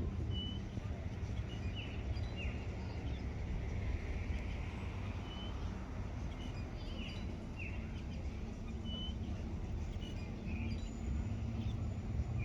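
Small birds chirping, short scattered calls every second or so, over a low steady background rumble.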